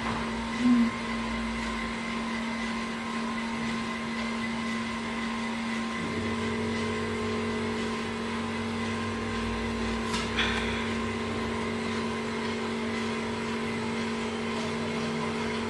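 A 16oz popcorn machine running with a steady electric hum as its kettle heats the kernels, which are not yet popping. A second, lower hum joins about six seconds in, and there is a single sharp click about ten seconds in.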